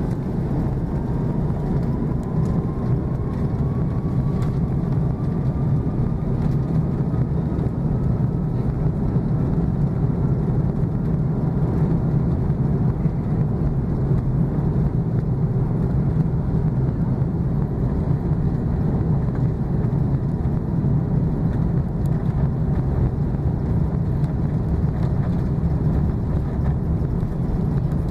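Airbus A330-300's Rolls-Royce Trent 700 jet engines heard from inside the cabin over the wing, spooling up for take-off. A whine rises in pitch over the first several seconds above a steady, loud, deep rumble.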